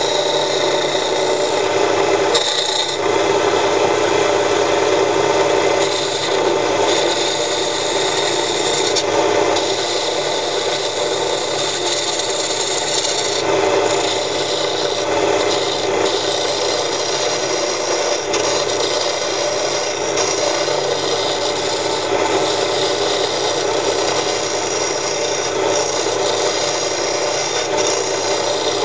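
Homemade wood lathe running while a hand-held turning tool cuts into the spinning wooden blank: a steady scraping rasp of wood being turned over the even hum of the lathe's electric motor and belt drive.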